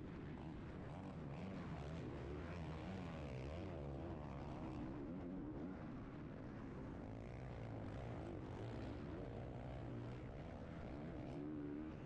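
Motocross bike engines revving up and down as the riders work the throttle through the corners, the pitch rising and falling over and over.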